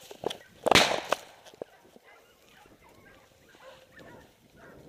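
A single shotgun shot of buckshot fired by another hunter nearby: a sudden loud bang about a second in that dies away within half a second, followed by faint scattered rustling.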